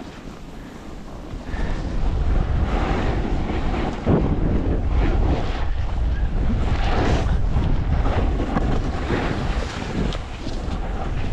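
Wind buffeting the microphone of a camera carried down a ski slope at speed, with a snowboard's edge scraping over the snow in repeated surges through the turns. It gets louder about two seconds in.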